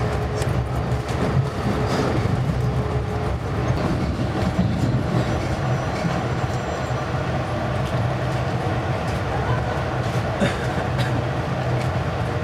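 Amtrak Pacific Surfliner train heard from inside the passenger car while rolling along: a steady rumble and hum of wheels on rail, with occasional sharp clicks from the track.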